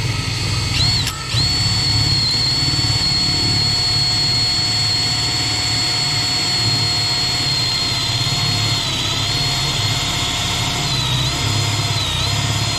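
Power drill running at speed with a large hole saw spinning freely in the air, a steady high-pitched motor whine. It drops out briefly about a second in, and the pitch sags slightly a couple of times near the end.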